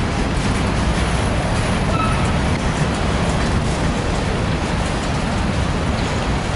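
Freight train of covered hopper cars rolling past close by: a steady, loud rumble of steel wheels on the rails, with a brief faint wheel squeal about two seconds in.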